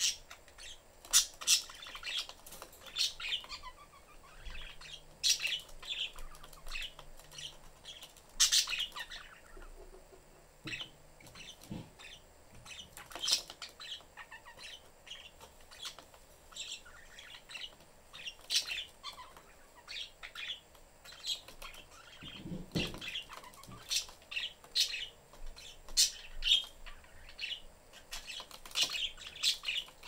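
Pet budgerigars chirping in short, high calls scattered throughout, with some wing flapping.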